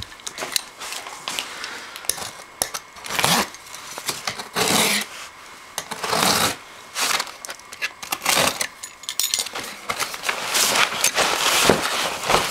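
Cardboard shipping box being pulled open and handled: flaps scraping and crackling, and packing material rustling, in an irregular run of short noisy bursts and knocks.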